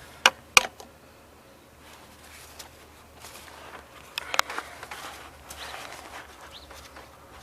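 10mm socket wrench working on the oil control valve's retaining bolt: two sharp metallic clicks near the start, then scattered lighter clicks and rustling a few seconds in.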